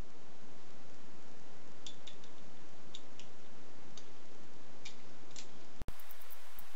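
Light metallic clicks and taps of small machined steel parts being handled and fitted together, a stop body slid onto a threaded rod, a few at a time over a steady hiss. The sound drops out briefly near the end.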